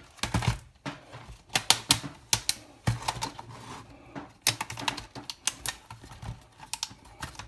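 Irregular sharp clicks and snaps, in quick clusters with short gaps, as a Sony Vaio laptop's display housing is forced apart.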